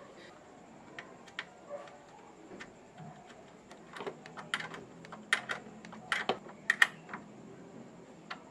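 Irregular sharp clicks and taps of hands handling wiring and small plastic parts beside a car battery, with more and louder clicks in the second half.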